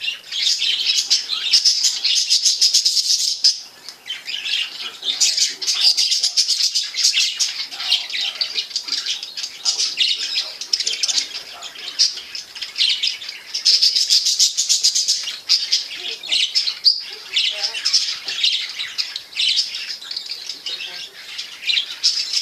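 Budgerigars chirping and warbling in a fast, continuous chatter, with a brief lull about four seconds in.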